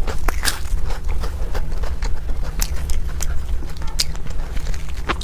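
A person chewing food close to the microphone: scattered soft mouth clicks and smacks over a steady low hum.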